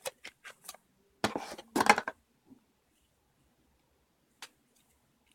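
Plastic 3x3 speed cube (Dayan Zhanchi) being handled and turned, its layers greasy: a few light clicks, then two quick clacking turns about a second and a half in, then the odd faint click.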